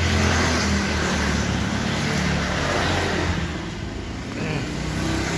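An engine running steadily, with a hiss over a low, even hum.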